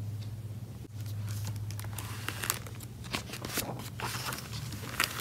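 A hardcover picture book being opened and its pages handled, giving a string of irregular crinkles and rustles from the glossy jacketed cover and paper, over a steady low hum.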